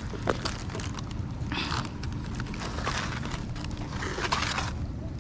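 Stones clicking and scraping against one another on a rocky shore as rocks are turned over in a search for small crabs, over a steady low rumble.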